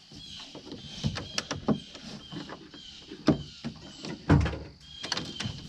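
A string of irregular knocks and clunks with rustling between them, the loudest thump a little over four seconds in.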